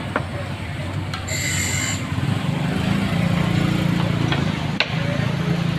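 Street noise with a motor vehicle engine running close by, growing louder about two seconds in, over a steady hiss. There is a brief high-pitched squeal about a second and a half in, and a few sharp clicks.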